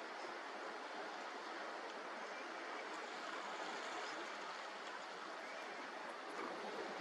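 Steady rushing wash of sea water, waves breaking and running along the shore.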